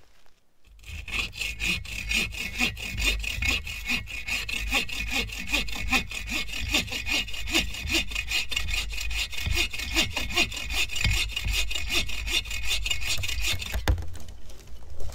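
Agawa Boreal 21-inch bow saw cutting through a birch trunk in fast, even back-and-forth rasping strokes. The strokes start about a second in and stop about a second before the end.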